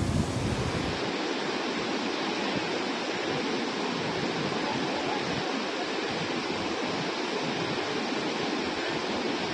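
Fast-flowing floodwater rushing around a stranded bus, a steady wash of water noise. A low rumble under it drops away about a second in.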